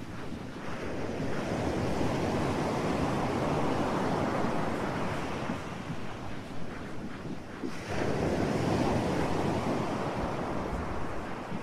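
Ocean surf: a steady rush of waves that swells and ebbs, with one long surge dropping off sharply near the middle and a second building right after.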